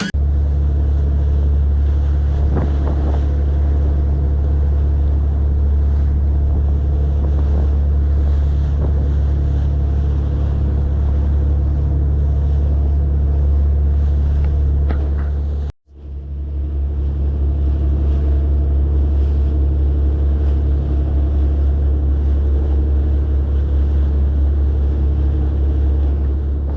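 Fishing boat's engine running underway, a loud, steady, deep drone with wind and water hiss over it. It breaks off for a moment a little past halfway, then carries on as before.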